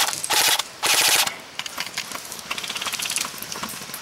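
Airsoft electric guns firing full-auto: three short, loud bursts in the first second and a half, then fainter scattered shots.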